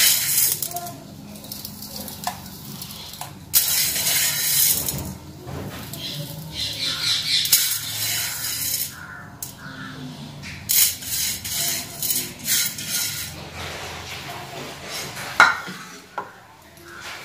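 Fingers rubbing and stirring dry flour mix in a steel bowl: irregular bouts of gritty scraping and rustling against the metal, with a short knock near the end.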